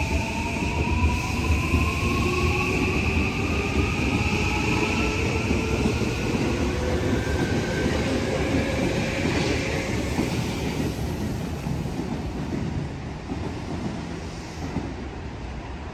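JR West 323 series electric train pulling away: its inverter and traction motors whine in several tones that rise steadily in pitch as it gathers speed, over the low rumble of the wheels. The sound fades away near the end.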